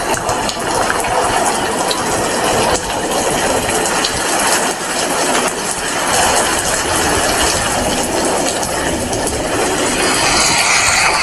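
Heavy rain falling steadily: a dense, even hiss with scattered sharper drop strikes.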